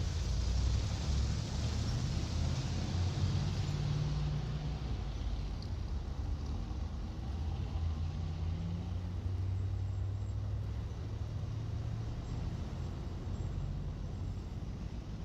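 Recorded vehicle sound effect: a steady low motor rumble with a hiss on top, the hiss dying down after about four or five seconds.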